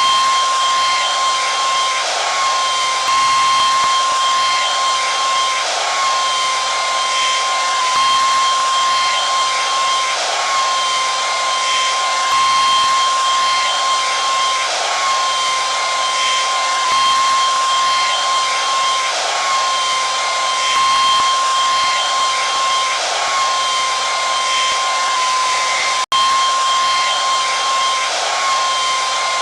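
Hair dryer running steadily on one setting: a constant motor whine over the rush of blown air. It cuts out for an instant once near the end.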